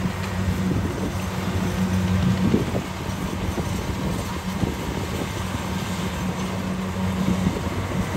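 Kubota DC-70 rice combine harvester running steadily while cutting rice, a constant engine drone under the clatter and hiss of the machine.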